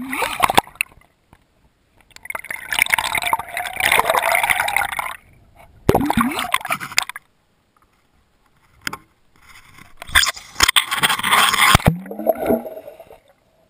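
Water rushing and gurgling past an underwater camera housing as it is towed on a fishing line, heard from inside the housing. It comes in three loud bursts with near-silent gaps between them, and has a few sharp knocks.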